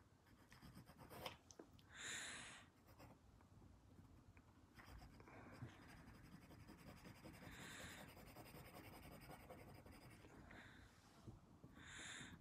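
Very faint scratching of a graphite pencil shading on drawing paper, with a few short, louder puffs of hiss.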